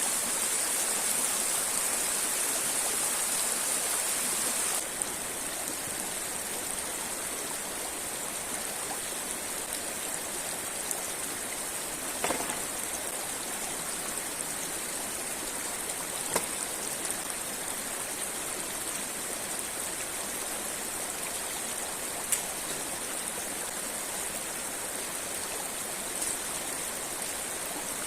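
River water rushing steadily over rocks, with a few short sharp clicks standing out above it; the rush drops a little in level about five seconds in.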